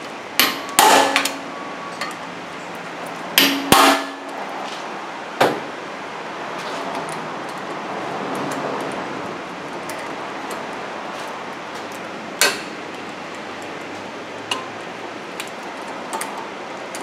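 Hammer blows on a hand impact driver to break loose the brake rotor's retaining screws: several sharp metal-on-metal strikes in the first six seconds, some with a short ring, then one more sharp clink about twelve seconds in.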